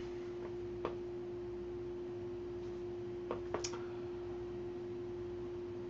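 A steady hum at one pitch, with a few faint clicks.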